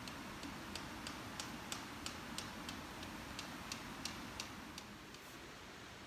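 Steady, regular ticking, about three ticks a second, fading out about five seconds in.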